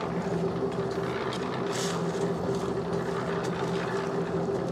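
Portable drum concrete mixer running with a steady hum as it turns a dry batch of sand and cement. A few faint shovel scrapes sound over it.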